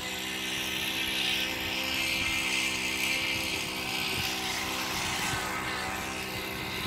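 Electric motor and 22x10 propeller of an RC Extra 300 aerobatic plane, a steady buzzing drone as it flies low past. A rushing hiss grows louder over the first few seconds, then eases.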